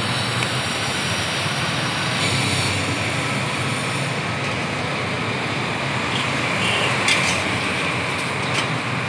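Steady street traffic noise, a continuous rush of passing vehicles. A couple of light clinks near the end, a ladle against steel serving pots.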